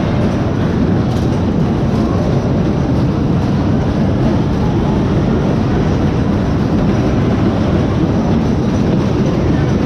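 Loud, steady rumble of a fairground ride running, like wheels rolling on a track.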